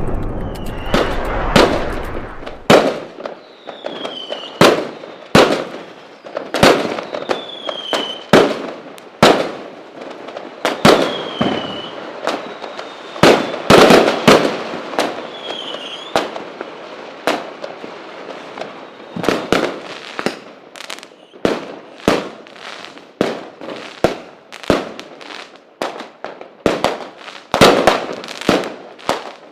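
Fireworks going off: an irregular run of loud bangs, sometimes several a second, each dying away quickly. A few short whistles falling in pitch sound between the bangs.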